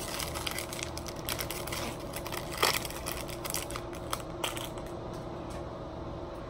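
Foil wrapper of a Topps Chrome baseball card pack being torn open and crinkled by hand: an irregular run of crackles, the loudest about two and a half seconds in, dying away after about five seconds.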